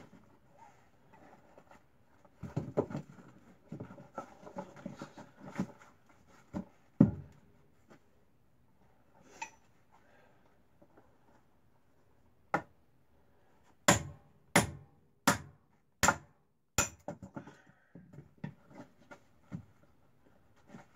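Firewood and kindling being split and handled by hand: scattered wooden knocks and clunks, with one heavier knock about a third of the way in. About two-thirds of the way in come five sharp, evenly spaced strikes of a tool on wood.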